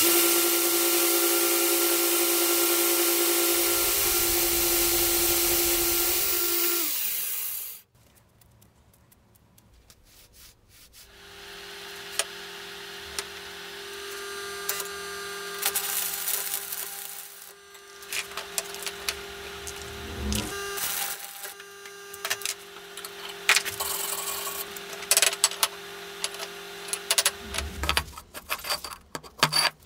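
An electric power tool runs loud and steady, with a hum and a strong hiss, then winds down about seven seconds in. After a short lull a second power tool runs more quietly with scraping and clicking, and winds down near the end.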